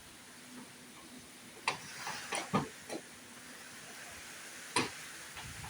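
Steady hiss broken by sharp knocks: a quick run of four about two seconds in, and one more near the end.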